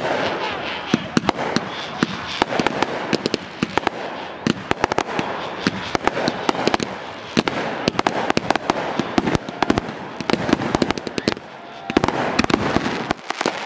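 Consumer (Class C) fireworks going off: aerial bursts with a rapid, near-continuous string of sharp pops and crackles, easing briefly near the end.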